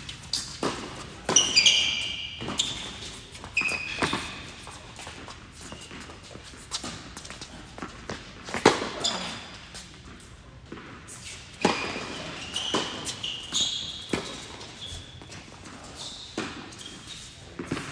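Tennis balls struck by rackets and bouncing on an indoor hard court during a doubles rally: sharp pops that echo around the hall, the loudest about nine seconds in. Short high squeaks of sneakers on the court come between the shots.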